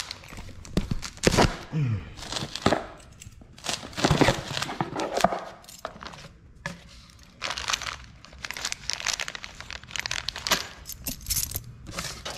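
A taped cardboard box being torn open by hand, then plastic bags of bolts and clips crinkling and rustling as they are handled inside it. Irregular rustling and tearing with a few sharp knocks.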